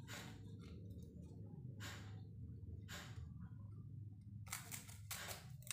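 Small scissors snipping through a folded pandan leaf: about five separate crisp cuts spread over a few seconds, over a faint steady low hum.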